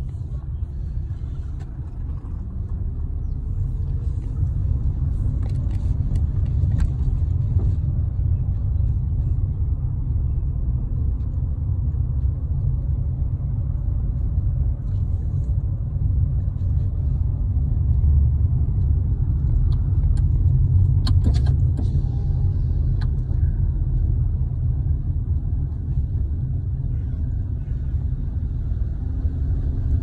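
Steady low rumble of a car driving, heard from inside the cabin: road and engine noise with no change in pace.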